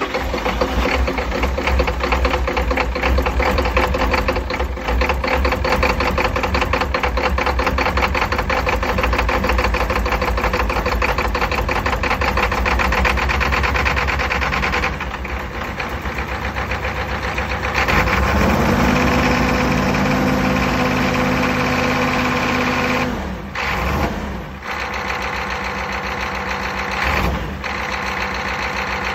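Engine running with a rapid, even firing beat after a hard start. A steady hum comes in for a few seconds past the middle, and the engine sags briefly a few times near the end.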